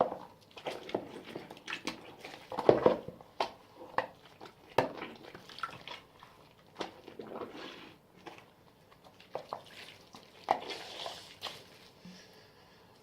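Homemade slime being stirred and squished by hand, making irregular sticky squelches and clicks.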